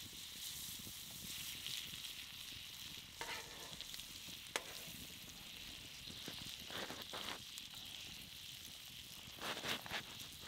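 Thick steaks frying in butter on a hot griddle plate over a wood campfire: a steady sizzling hiss with a few sharp pops and short crackly flurries.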